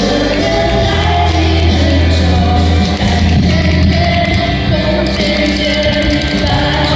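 Loud music with singing, over a deep held bass note.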